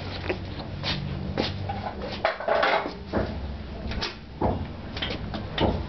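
Irregular short knocks and scuffles, with a longer rustling scuffle about two and a half seconds in.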